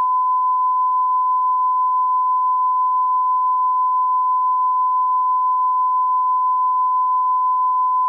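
Censor bleep: a single steady pure tone, held unbroken, laid over the soundtrack to mask inappropriate remarks.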